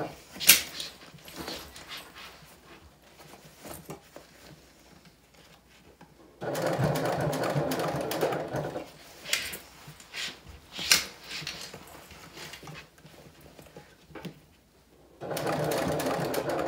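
Domestic sewing machine top stitching in two short runs, the first about two and a half seconds long and the second starting near the end, sewing slowly through the thick layers at the zipper tabs. Between the runs there are sharp clicks and handling noise, with one loud click about half a second in.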